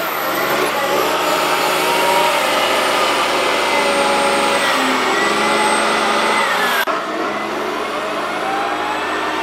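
Diesel engine of a 2005 Cat 938 wheel loader running as it works, with its revs and a whine rising and falling. The sound breaks off sharply about seven seconds in, then picks up again.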